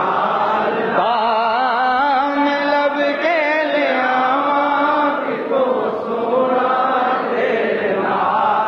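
A man's voice singing a naat without words the recogniser could catch, drawing out long held notes with heavy vibrato and ornamented runs.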